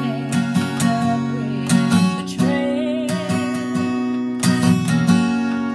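A woman singing a country song while strumming a steel-string acoustic guitar, a steady strummed rhythm under a held, wavering vocal line.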